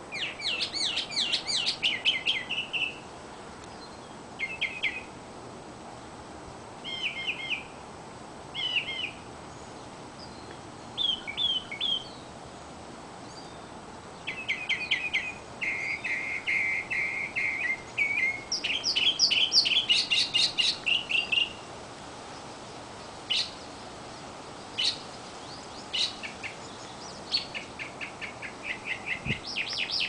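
Northern mockingbird singing: a string of varied phrases, each a quick run of repeated chirps, with short pauses between them and a few single sharp notes later on.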